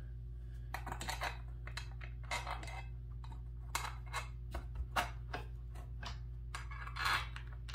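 Irregular light clicks and taps of small M6 bolts being handled and started by hand into a metal desk frame, over a steady low hum.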